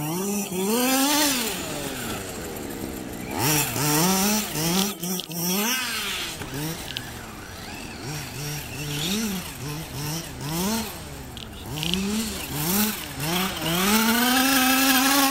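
Small two-stroke engine of a radio-controlled off-road buggy, revving up and falling back over and over as it accelerates and slows, in short blips about once a second through the middle. Near the end it holds a long, high full-throttle run.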